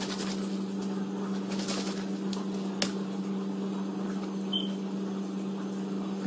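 Baby bottle boiling in water in the kitchen: a steady low hum under a hiss, with a few faint clicks.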